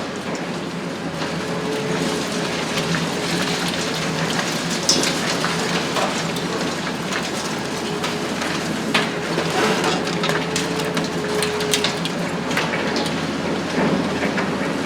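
Demolition excavator working a high-rise with its hydraulic shear: a steady rushing hiss full of scattered cracks and clatters of breaking and falling concrete and debris, over a low machine hum. A faint steady whine is held for a few seconds in the second half.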